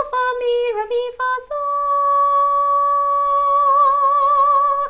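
A woman singing unaccompanied in solfège, softly in half-voice. She sings a few short notes, then holds one long note that wavers slightly near the end.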